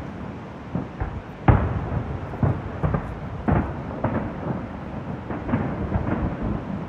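Fireworks shells bursting in an irregular series of booms, the loudest about a second and a half in, over a steady rush of background noise.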